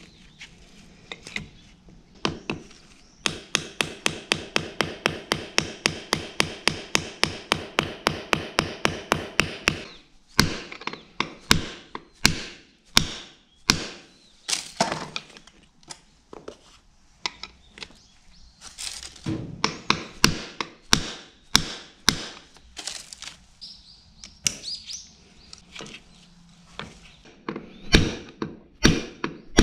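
A mallet striking the yoke of a tractor PTO shaft's universal joint while the new spider is fitted, knocking its bearing cups into place. It starts as a fast, even run of about four blows a second for several seconds, then gives way to slower, irregular and often heavier blows.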